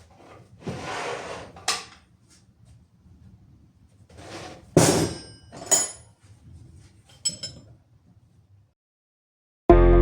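Work noises while repairing a mobility scooter: a scrape and a click, then a few sharp metallic knocks and clinks with short ringing, as tools and metal parts are handled. Music with plucked-string notes starts just before the end.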